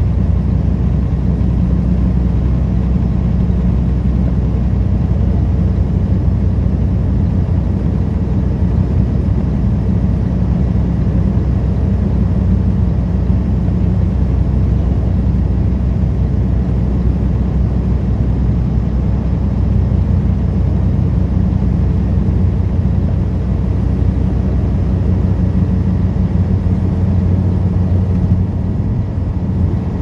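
Semi-truck's diesel engine running steadily while driving, with road noise: a low, even hum with steady engine tones, the lowest part easing slightly near the end.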